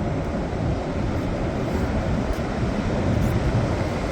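Wind blowing across the microphone: a steady, even rush with a heavy low rumble.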